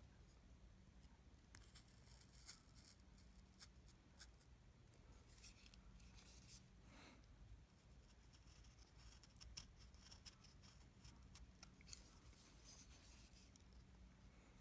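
Faint scraping and clicking of a carving chisel paring small shavings from a wooden Jizo figure, in a series of short strokes over a low steady hum.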